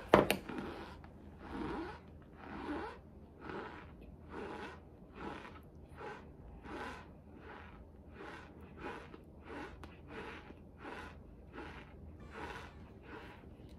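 Close-up chewing of a mouthful of cornstarch: one sharp crunch at the start, then a steady run of crunching chews, a little under one a second and quickening slightly toward the end.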